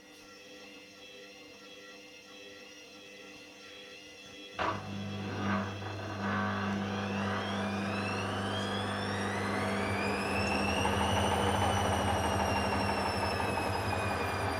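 Hoover Dynamic washing machine starting a spin. After a quiet pause there is a click about four and a half seconds in, then the motor hums and a whine climbs in pitch as the drum speeds up, levelling off and dipping slightly near the end.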